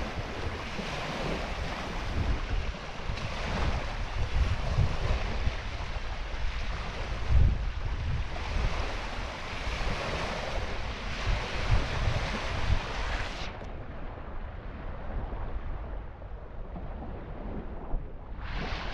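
Wind buffeting the microphone over small lake waves washing onto the shore, with low rumbling gusts; the hiss thins out about two-thirds of the way through.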